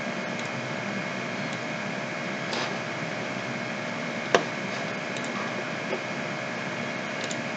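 Steady background hiss and hum, with a few short sharp clicks of a computer mouse. The loudest click comes about four seconds in.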